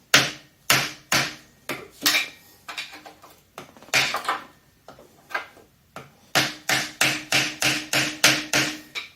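Repeated hammer blows on the stuck front timing cover of an Oldsmobile 303 engine, knocking at it to free it. Each strike rings briefly; in the second half the blows come faster and steadier, about three a second.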